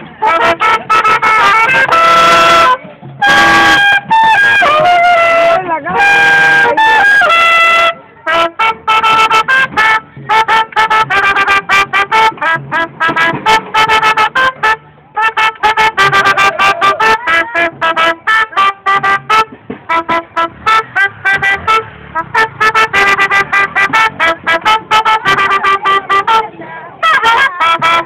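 Trumpet played very loudly in short, choppy blasts. A few held notes, some bending in pitch, come in the first several seconds, then a long run of quick staccato notes.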